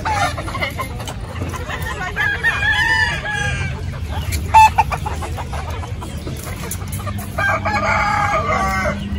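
Two rooster crows, each drawn out for about a second and a half, with clucking poultry, over a steady low background noise. A brief loud sound stands out about four and a half seconds in.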